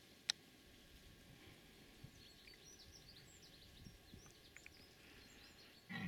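Faint outdoor quiet with scattered small bird chirps and one sharp click shortly after the start. Right at the end a rutting red deer stag starts to bell, a sudden deep call.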